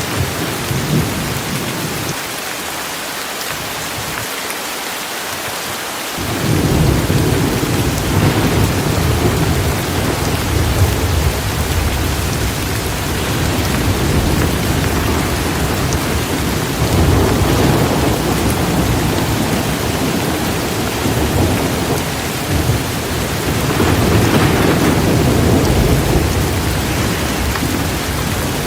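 Heavy rain falling steadily, a constant hiss, with rolling thunder rumbling in about six seconds in and swelling twice more later.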